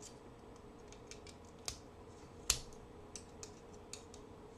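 Faint scattered clicks and ticks of a rusty Kamp-King pocket knife's tools being handled and worked open, the sharpest click about two and a half seconds in.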